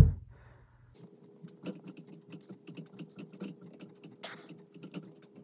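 Push-ups on carpet heard in time-lapse: a rapid, irregular patter of small taps and rustles over a steady hum, with one short louder breath-like hiss about four seconds in.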